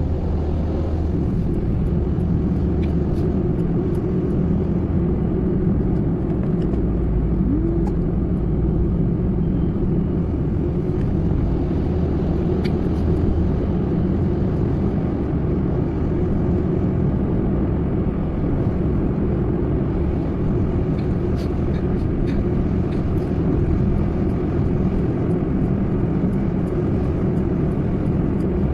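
Steady road and engine noise heard from inside a moving car's cabin, a low, even rumble with a few faint ticks.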